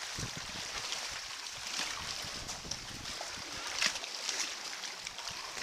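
Sea kayak being paddled into a force 5 headwind: choppy water splashing and sloshing against the hull and paddle blades in irregular bursts, over a steady wash of wind and waves.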